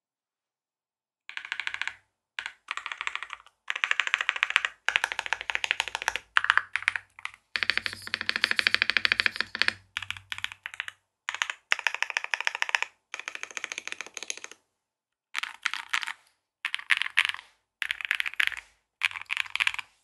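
Typing on a KBDfans Tofu65 2.0 custom mechanical keyboard: Prevail Nebula switches lubed with 205g0, a fiberglass plate, gasket mounting, plate, case and PE foam, and PBTfans Dolch PBT keycaps. Quick runs of keystrokes come in bursts with short pauses between them, starting about a second in.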